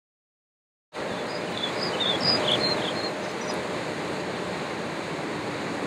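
Steady rushing of flowing water, starting abruptly about a second in, with a few short high chirps soon after.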